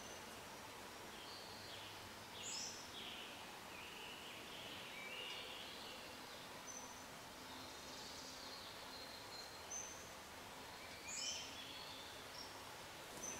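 Faint outdoor ambience with a bird calling in short, high, downward-slurred chirps several times through the stretch.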